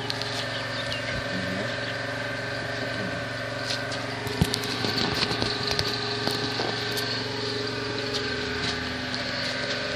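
A steady mechanical hum of a running motor, holding several fixed pitches, with scattered sharp clicks and crackles about four to six seconds in.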